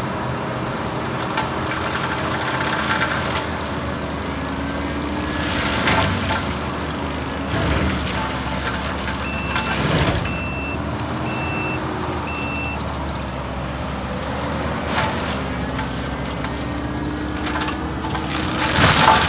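Kubota skid steer's diesel engine running under changing load, its speed sagging and recovering several times, with a few sharp cracks from brush being broken. Near the middle its backup alarm beeps four times, about once a second.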